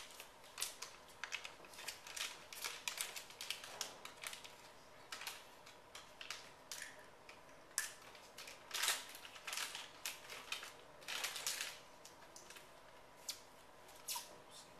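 Irregular rustling and clicking of objects being handled, like papers and small items shuffled at a podium, over a faint steady electrical hum.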